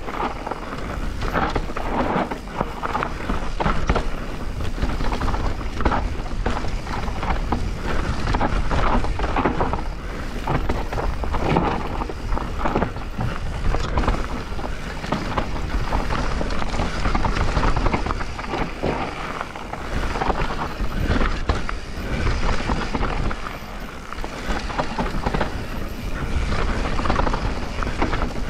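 Transition Spire 29er enduro mountain bike descending a loose dirt trail: tyres rolling over dirt and stones and the bike rattling over bumps in many short knocks, with a steady low wind rumble on the action-camera microphone.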